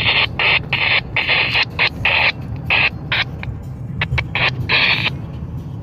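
Hissing static, like a radio receiver picking up a noisy signal, cutting in and out in irregular choppy bursts over a steady low rumble; the hiss thins out about five seconds in.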